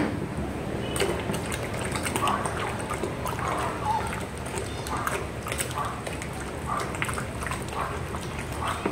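A stick stirring a thick, thickening liquid mix in a plastic bucket: wet swishing and sloshing, repeating about twice a second.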